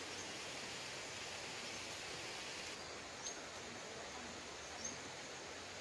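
Steady outdoor background hiss of a rural plantation, with two faint, short high chirps about three and five seconds in.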